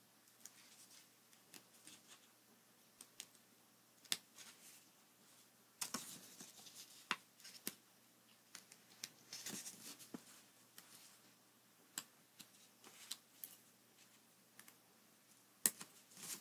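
Scissors snipping thin paper in faint, irregular clicks during detailed freehand cutting, with light rustling as the sheet is turned. The sharpest snip comes near the end.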